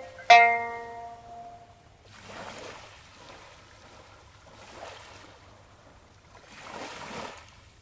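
A single sanshin note plucked just after the start, ringing out and fading, followed by small waves washing onto the shore three times, about two seconds apart.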